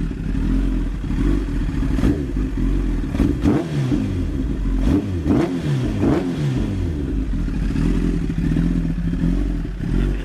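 Honda CBR1000RR inline-four sport bike with a cat-delete Arrow exhaust, warm and idling. Between about two and seven seconds in, it is blipped several times, each rev rising sharply and falling back, before it returns to a steady idle.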